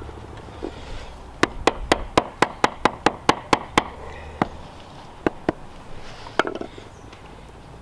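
Butt end of a cobble hammer's wooden handle tapping a sandstone cobble down into a semi-dry sand-and-cement bed: a quick run of about a dozen sharp taps, roughly four a second, then a few single taps, seating the cobble to line and level.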